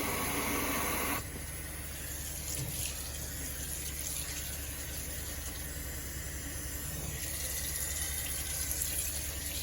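Kitchen faucet running water into the sink. The flow is heavier for about the first second, then steadier and softer, with a steady low hum underneath.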